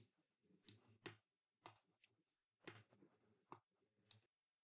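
About eight faint computer mouse clicks at irregular intervals against near silence.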